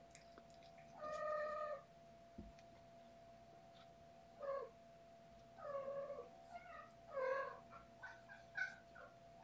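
Kittens mewing: a series of about six high-pitched mews, one longer mew about a second in, then a quicker run of shorter mews over the second half.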